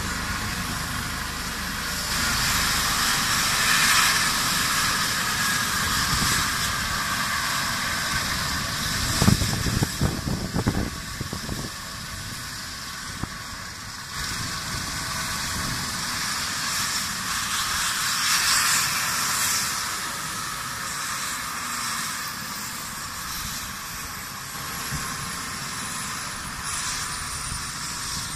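Eurocopter EC135 air-ambulance helicopter running on the ground with its rotor turning: a steady turbine hiss and rotor noise. A short burst of low buffeting comes about nine seconds in, and near the end a faint whine slowly falls in pitch.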